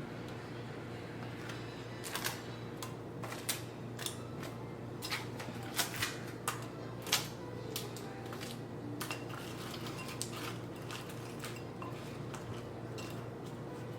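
Kitchen utensils and dishes clinking and knocking: a string of short, light clicks between about two and eight seconds in. A steady low hum runs under them.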